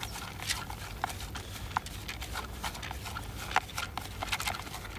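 Fishing pellets stirred by hand in a plastic bait tub, coated with a liquid glug: irregular clicking and rattling as the pellets knock against each other and the tub walls.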